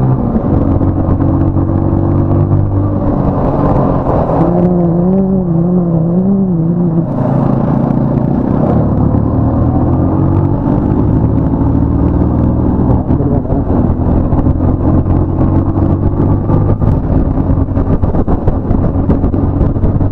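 Motorcycle engine running steadily on the move, its pitch stepping up and down a few times with speed. A wavering tone sounds over it for a couple of seconds about a quarter of the way in.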